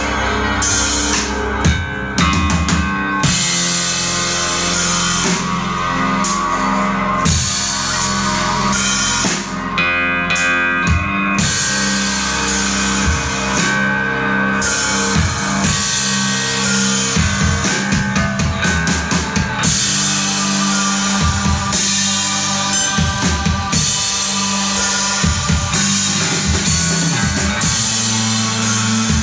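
Live instrumental rock from a drummer and a guitarist: drum kit hits and cymbals over electric guitar and a sustained low drone.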